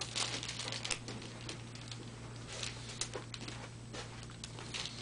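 Scattered light clicks and taps with soft rustling, as of handling on a treatment table, over a steady low electrical hum.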